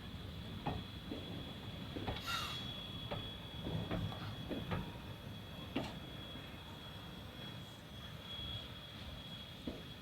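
Train running on the line: a steady low rumble with irregular knocks and clicks, and a brief hiss about two seconds in.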